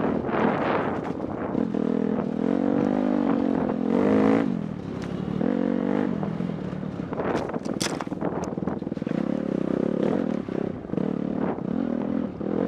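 Dirt bike engine running along a rough trail, its pitch rising and falling as the rider opens and closes the throttle. Knocks and rattles from the bike over bumps, with a sharp clatter about eight seconds in.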